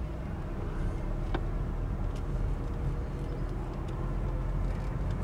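Car engine and tyre noise heard from inside the cabin while driving slowly, a steady low rumble.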